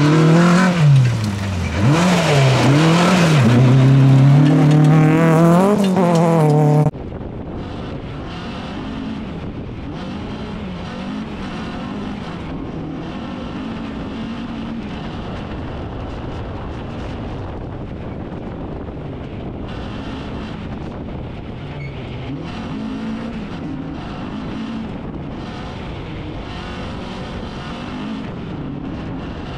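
Renault Clio F2000-class rally car engine revving hard as the car passes on gravel, its pitch rising and falling through gear changes. About seven seconds in, the sound cuts to the same kind of car heard from on board: a quieter, muffled mix of engine and tyre noise on the dirt road, with engine pitch swinging gently.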